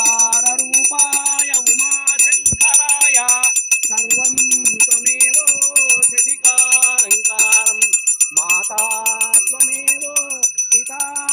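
Brass hand bell rung rapidly and without pause for the aarti, its ringing steady over the whole stretch. Under it, voices sing a devotional song in melodic phrases.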